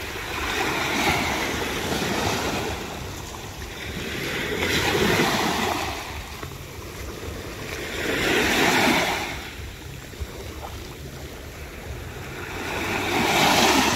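Waves breaking on the shore, the surf swelling and fading four times.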